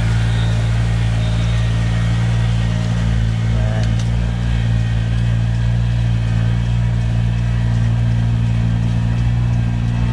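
Rice transplanter's engine running steadily at a constant speed, a loud even hum while the machine plants seedlings.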